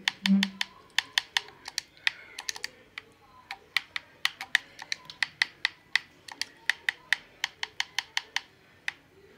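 Rapid, irregular sharp clicks, several a second, with a short low tone right at the start.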